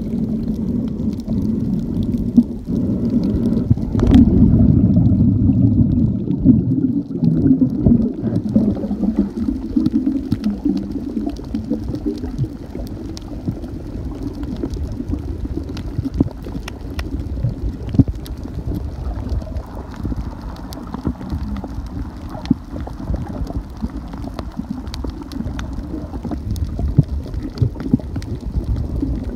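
Underwater sound picked up by a snorkeler's camera: a muffled low rumble and gurgle of moving water, louder for a few seconds about four seconds in, with faint scattered clicks throughout.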